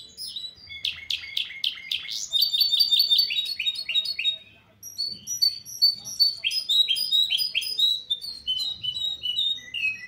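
A caged goldfinch hybrid singing a trained song. Fast runs of repeated, downward-sweeping high notes, with a brief pause about halfway through before the song resumes.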